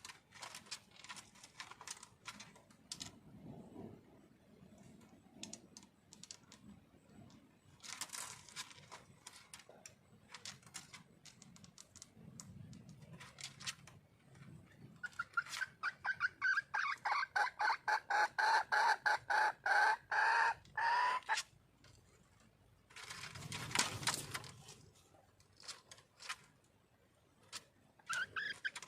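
Red junglefowl hen calling: about halfway through, a run of rapid, pitched clucks, about four a second for several seconds. This is a wild hen's call to attract a male. Scattered clicks and a short burst of rustling noise come before and after.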